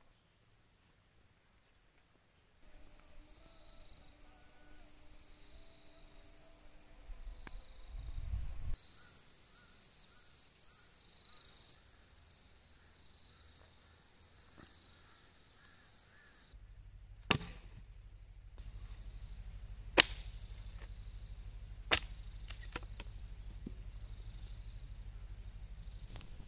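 Steady high-pitched chirring of insects with occasional short bird chirps. In the second half come three sharp knocks about two to three seconds apart.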